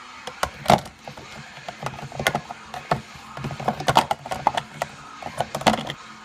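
Plastic clicks and knocks of a drip coffee maker being handled, its hinged lid opened and parts in the top fitted by hand. An irregular run of sharp clacks, the loudest about three-quarters of a second in, around four seconds in and near the end.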